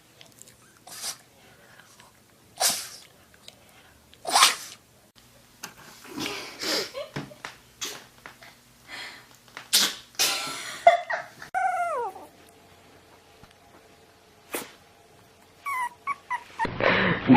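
A dog sneezing repeatedly, short sharp sneezes a second or two apart, with a brief falling whine about twelve seconds in. A loud rush of noise sets in near the end.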